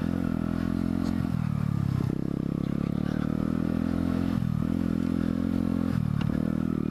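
Mutt Hilts 125's single-cylinder engine running under load on a ride, the revs dropping and picking up again a few times. A few clicks and rattles come from the bike over rough ground.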